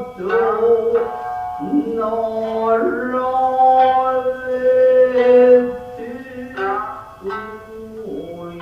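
Japanese traditional dance music: plucked shamisen notes under a long-held, slowly bending sung line.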